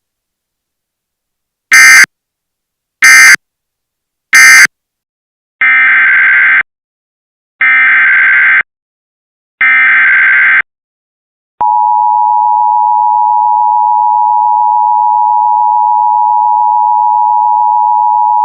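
Emergency Alert System data and tones. First come three short SAME digital bursts closing the previous alert (end of message). Then come three longer SAME header bursts of about a second each, announcing the next warning, and from a little past halfway the steady two-tone EAS attention signal.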